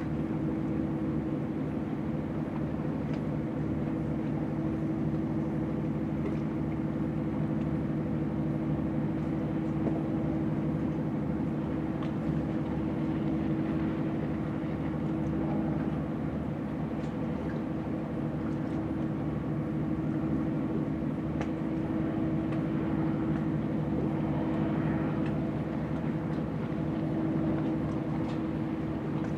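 Steady drone of a ship's diesel engine running at constant speed: an even hum of several held tones over a fast low throb.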